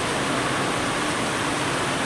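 Steady, even rushing noise of electric wall fans.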